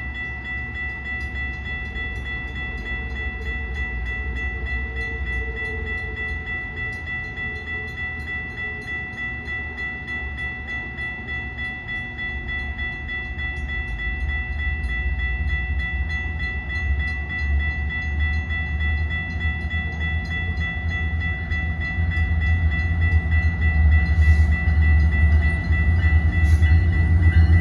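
Grade-crossing warning bell ringing steadily while the low rumble of an approaching Metra diesel double-header grows louder. A horn blast starts right at the very end.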